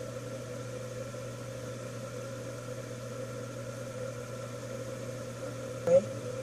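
Steady low hum with a faint steady tone, with a brief vocal sound about six seconds in.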